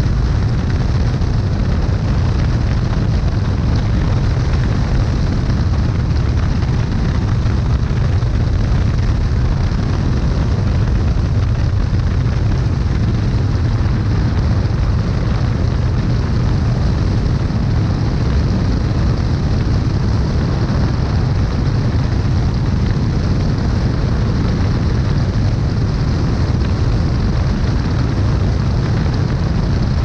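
Light high-wing aircraft in flight, heard from a camera mounted outside under the fuselage: a loud, steady deep rumble of wind buffeting the microphone together with engine and propeller noise.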